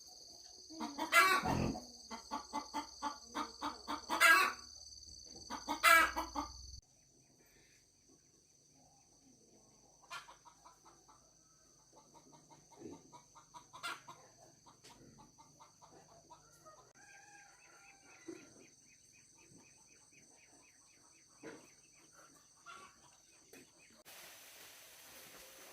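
Chicken calls: a fast run of clucks broken by several louder calls during the first seven seconds, then fainter scattered clucks and calls.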